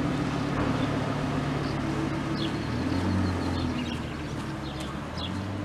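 Audi R8 V10 Spyder's V10 engine running as the car drives off. It fades steadily, with a brief swell about three seconds in.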